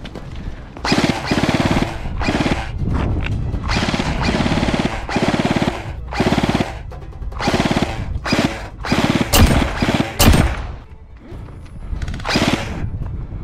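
Stock G&G F2000 airsoft electric rifle firing full-auto in about ten short bursts, each a very fast rattle of shots, with two sharp cracks about a second apart near the end.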